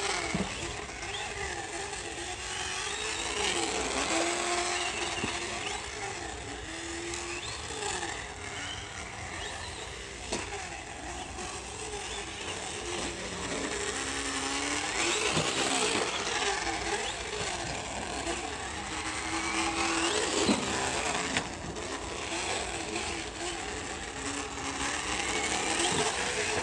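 Traxxas Slash RC truck's onboard sound system playing a recorded V8 super truck engine through its speaker, the revs rising and falling over and over as the truck accelerates and slows around the track.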